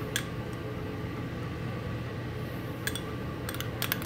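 Steady low hum of a ship galley's ventilation and machinery, with a few faint clicks from a spoon at the stockpot near the end as tomato paste is added.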